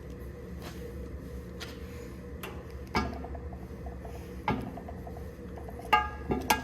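Metal tools or engine parts being handled during the engine work: four sharp metallic clinks, the last two close together and loudest, some ringing briefly, over a steady low hum.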